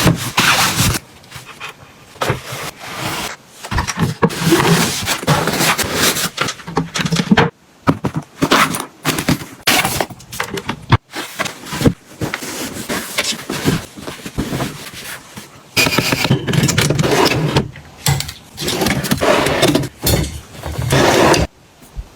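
Items being handled up close: irregular rustling and scraping in bursts a second or two long, with brief pauses between, ending abruptly shortly before the end.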